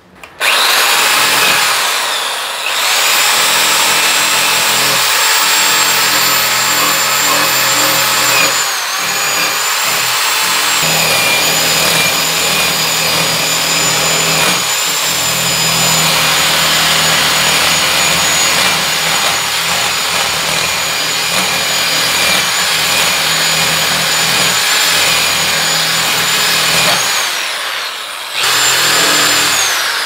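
Electric drill spinning a wire cup brush against the rusty steel frame of a washing machine, scouring off the rust. The drill's whine and the brush's scraping run almost continuously, easing off briefly a couple of times, with the pitch dropping before the drill speeds up again.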